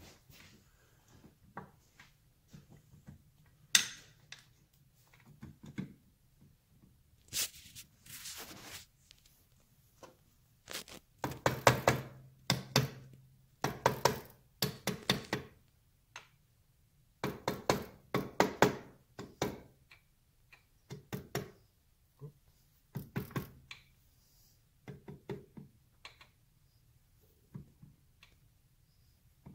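A mallet tapping an aluminium gearbox cover home onto a Triumph four-speed gearbox: clusters of quick knocks with pauses between them.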